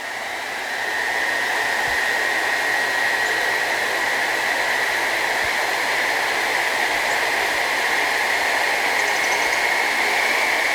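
Vacuum-cleaner motor running fast with a high, steady whine as it drives a ceiling fan by a belt, over a rush of air from the spinning blades. The sound swells over about the first second as the voltage is raised, then holds steady, the whine edging slightly higher near the end.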